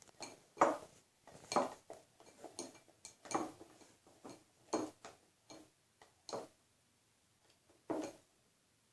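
Utensil knocking and scraping against a mixing bowl as slime ingredients are stirred, in irregular strokes about once a second with a short pause near the end.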